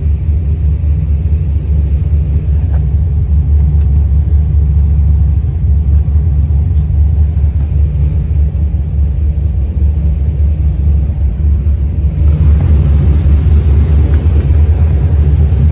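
Cammed 6.0-litre LQ4 V8 in a Yukon Denali running at idle with a steady deep rumble; the idle is surging some. The sound grows fuller about twelve seconds in.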